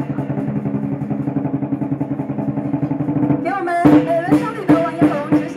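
Lion dance percussion: a fast, steady rolling drum beat, then, about three and a half seconds in, louder separate drum strikes about three a second with voices over them.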